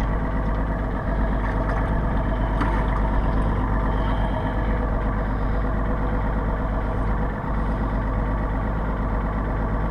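Boat engine running at a steady idle.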